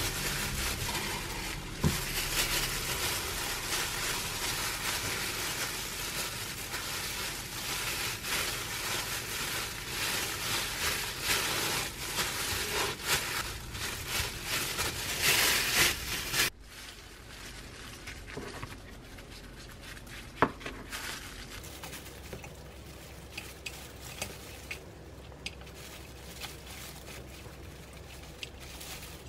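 Disposable plastic food-prep gloves rustling and crinkling as hands press fillings onto laver and roll a gimbap. Partway through it stops abruptly and gives way to quieter handling with scattered light ticks and one sharp click as the sliced pieces are set on a plate.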